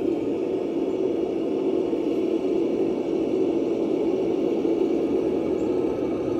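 A steady, even mechanical hum, like an engine running at idle.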